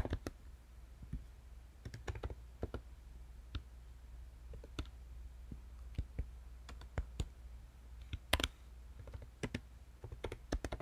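Typing on a computer keyboard: scattered, irregular key clicks with pauses between them, a louder pair of keystrokes about eight seconds in and a quicker run near the end, over a faint low hum.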